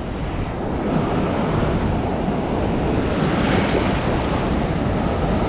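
Shallow surf rushing and foaming around the legs in the wash zone, swelling about three seconds in as a wave surges through.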